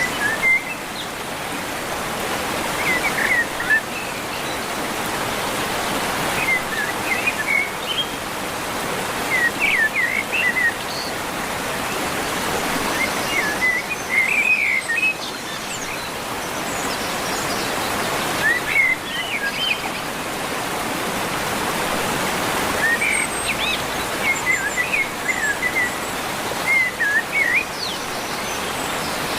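Waterfall with a steady rush of water, and a bird singing short chirping phrases every few seconds over it.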